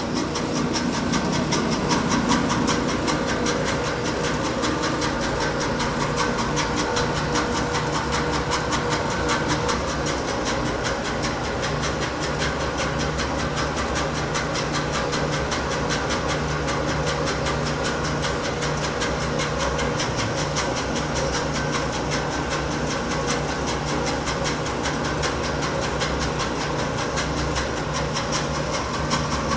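Littleford FM130D stainless steel plow mixer running steadily, with its mixer plows and chopper blade both turning through sugar, a constant mechanical run with a hiss over a low hum.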